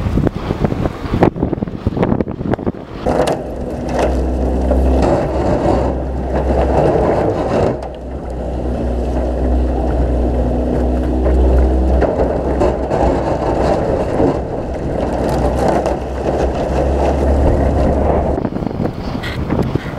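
Pontoon boat's outboard motor running steadily while its aluminum pontoon tubes push through thin ice, with ice scraping and crunching along the hull and water rushing past. A few sharp knocks sound in the first seconds.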